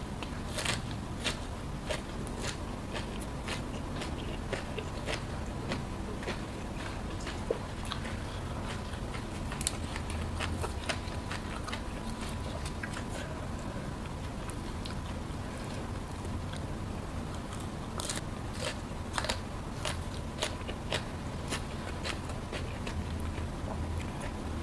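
Close-miked eating: crunchy bites and chewing of raw leafy vegetables (lalapan), a steady run of sharp mouth clicks and crunches throughout.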